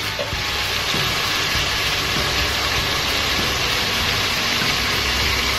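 Sliced tomatoes, onions and garlic sizzling steadily in hot oil in a pot on a gas stove, cooking down to release their juice.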